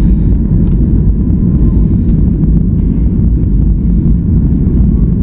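Loud, steady low rumble inside the cabin of a flydubai Boeing 737 jet airliner as it rolls on the runway to begin its takeoff: the engines and wheels are heard through the fuselage.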